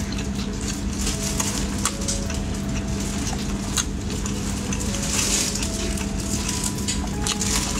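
Wooden skewers of sauced food being handled and lifted from a tray: scattered light clicks and rustles over a steady low hum.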